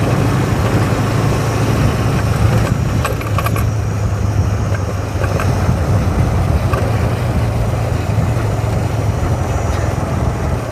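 Motorcycle engine running steadily on the move, under a constant rush of road and wind noise, with a few light rattles about three seconds in.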